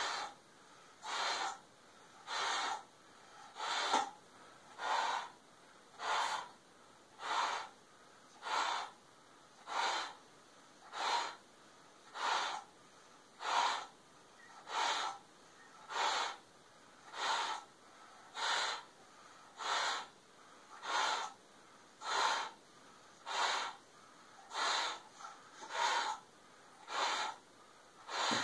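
A man breathing hard and rhythmically as he blows up a swimming cap through a tube held in his mouth: a short, loud, sharp breath about every second and a quarter, with quiet between.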